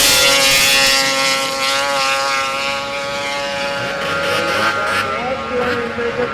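Two racing snowmobiles running flat out up a hill, a steady high engine whine that slowly fades as they pull away.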